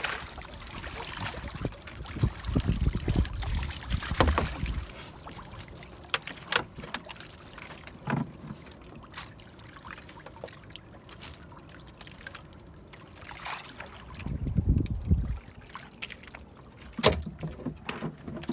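Water sloshing and trickling against the side of a small outrigger boat as a netted fish trap is handled over the side, with a few sharp knocks of the trap's frame against the hull. Two spells of low rumbling, a few seconds in and near the end.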